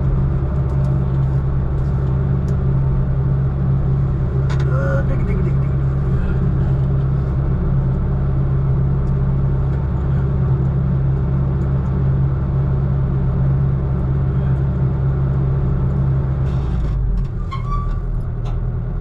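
Heavy diesel engine of a piece of logging equipment running steadily, a low continuous drone. Its note shifts near the end.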